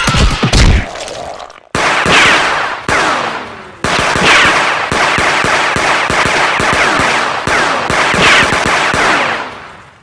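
Cartoon machine-gun fire sound effect: rapid shots in long bursts starting about two seconds in, with a short break near four seconds and falling, whistling tones mixed through them. Before that, the low tail of a heavy crash dies away.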